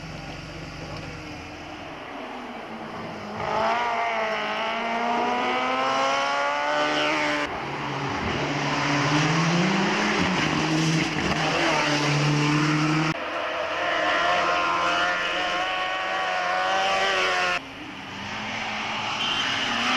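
Hillclimb race cars driven flat out past the spectators, engines revving hard and climbing in pitch through the gears. Several short passes are cut one after another, each ending abruptly.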